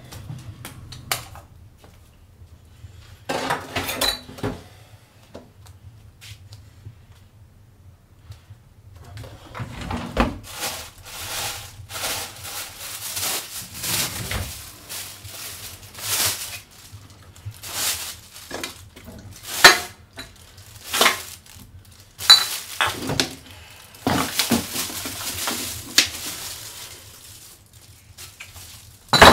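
Irregular clattering and clinking of hard objects being handled, with a few sharper knocks, over a faint steady low hum.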